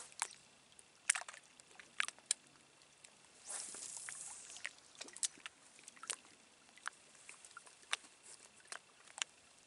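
Small waves lapping against a rocky shoreline, with scattered small clicks and splashes. About three and a half seconds in, a brief hiss of about a second as a spinning rod is cast and line pays off the reel.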